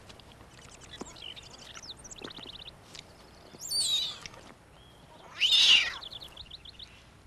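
Newborn cougar kittens calling with high, thin chirps and mews, broken by short rapid trills. The loudest is a falling cry about four seconds in, with another loud call around five and a half seconds.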